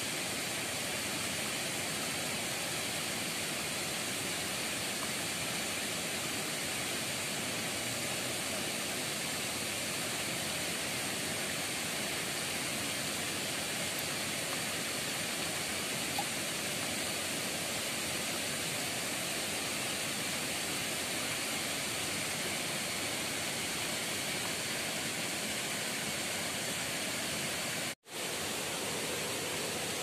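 A small waterfall, two thin streams of water pouring into a pool, making a steady, even rushing hiss. It cuts out for a moment near the end.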